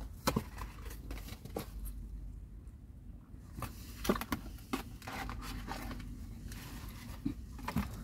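A cardboard burger box being opened and handled, with scattered light scrapes and clicks of the card flaps as the burger is lifted out.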